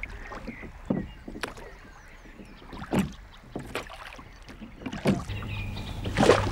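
A small boat being poled with a long wooden pole: scattered knocks of the pole and feet against the hull, with water sloshing, the loudest knock just after six seconds. A steady low hum comes in about five seconds in.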